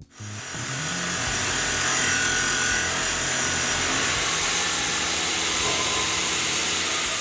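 Tormach PCNC 1100 CNC mill machining an aluminium plate with a small cutter: a steady cutting noise with a strong hiss, which builds up over about the first second.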